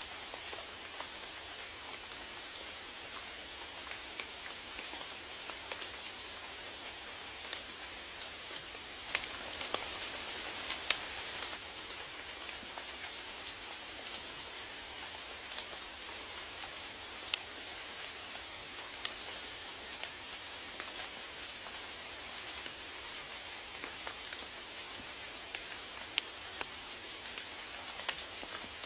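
Steady rainfall hissing, with scattered sharper raindrop ticks, a little heavier for a few seconds about a third of the way through.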